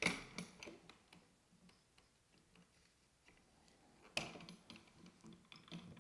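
Faint clicks and light knocks of an articulating arm and metal slider hardware being handled and adjusted, with a sharper knock at the start and another about four seconds in.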